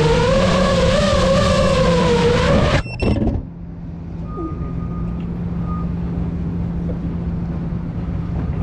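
FPV quadcopter motors whining, their pitch wavering with the throttle, then cutting off abruptly with a brief clatter as the drone comes down onto the paving about three seconds in. After that a steady low hum carries on, with a short faint high beep.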